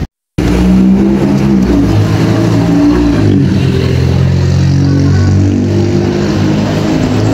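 New Routemaster double-decker bus's diesel-electric hybrid drive running as the bus pulls round a corner close by: a droning engine note that shifts in pitch a few times, after a brief dropout at the very start.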